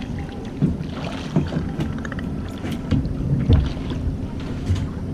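Irregular knocks and thumps on a fishing boat, about five of them, the loudest about three and a half seconds in, over wind on the microphone and a steady low hum.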